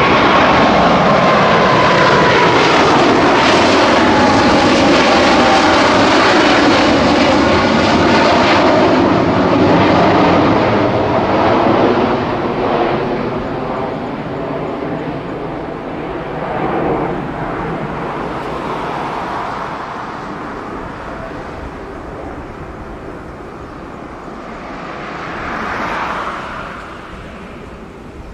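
Cargo jet's engines at takeoff thrust passing by, their whine falling in pitch in the first few seconds, then the roar fading steadily as the aircraft climbs away.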